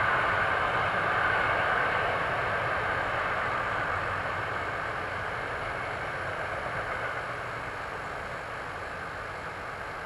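Container freight train rolling away around a curve, its steady wheel and rail noise slowly fading as it recedes.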